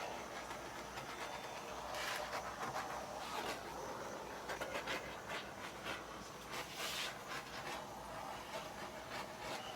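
Irregular rubbing and scraping strokes of hand work on a hard surface, coming in uneven bursts, with stronger strokes about two, three and a half and seven seconds in.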